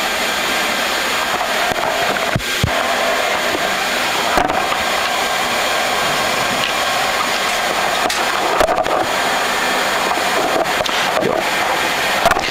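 Steady cockpit noise of a Boeing 737 MAX on the ground with its CFM LEAP-1B engines at idle, an even hiss and hum. A few faint clicks stand out over it.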